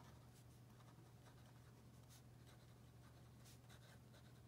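Faint scratching of a Brause metal dip-pen nib writing on paper in short, light strokes, over a steady low hum.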